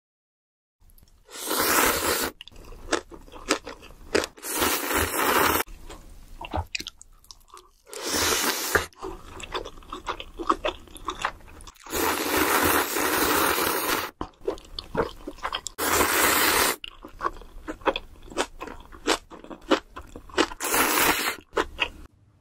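Close-miked mukbang eating: a person eating black bean sauce noodles, with about six long, loud slurps of a second or two each and chewing with small wet clicks in between. The first second is silent.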